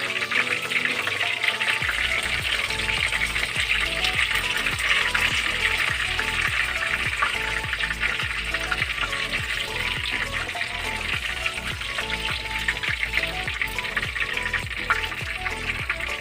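Chicken fillet frying in hot oil, sizzling steadily with fine crackles throughout. Background music with a steady beat plays along.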